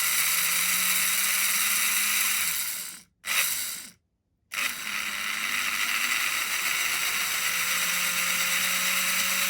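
Märklin HR 800 N model locomotive's electric motor and gears whirring as it runs on the track after its repair. It slows and stops about three seconds in, gives a short burst, then starts again and speeds up with a rising whine.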